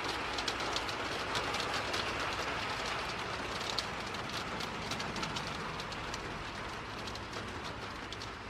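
Steady rain falling, an even rushing noise with many sharp drops ticking on nearby surfaces.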